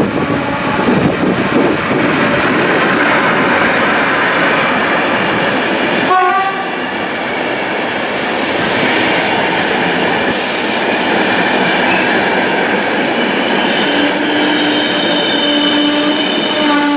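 A PKP Intercity locomotive-hauled passenger train rolls past close by, its wheels and coaches making a loud, steady rush on the rails. A brief tone sounds about six seconds in, and thin high-pitched tones come in over the last few seconds.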